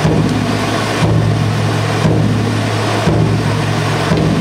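Hand-held tezutsu tube firework spraying a column of sparks: a loud, steady rushing with a low hum, its texture shifting about once a second.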